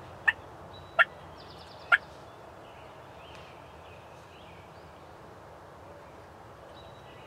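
Wild turkeys calling: three short, loud calls within the first two seconds. After that only a steady background hiss remains, with faint high chirps from small birds.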